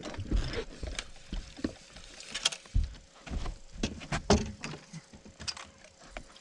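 Footsteps and irregular knocks and thumps on a bass boat's deck as the landing net is grabbed and handled while a hooked fish is fought; there are two louder knocks, about two and a half and four seconds in.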